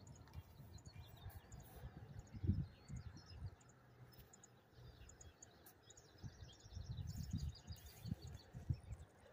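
Wind buffeting the microphone in gusts, with small birds chirping in quick, repeated short notes throughout.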